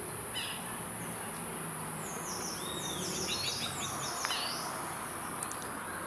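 Wild birds calling in forest: a short run of high chirps, then about two seconds in a longer series of quick, high, falling notes, over a steady background hiss of insects and outdoor ambience.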